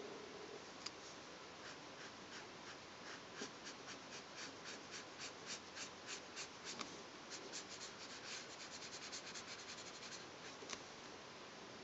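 Black felt-tip pen scratching back and forth on paper as it fills in a solid black area. The strokes come about two a second at first, quicken to several a second later on, and stop near the end.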